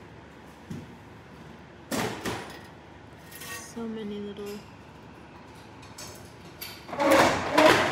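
A sharp double knock about two seconds in, as of something being set down or handled, and a short hummed tone a couple of seconds later. Then a person talking loudly near the end.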